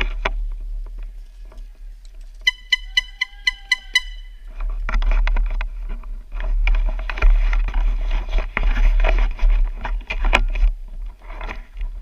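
A quick run of about nine short, high electronic beeps, then several seconds of dense crunching and rustling full of small clicks.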